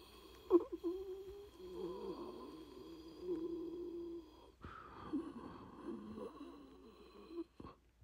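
A person breathing with a heavy, pitched wheeze, out of breath: two long, strained wheezing breaths that waver in pitch. The second one cuts off abruptly near the end.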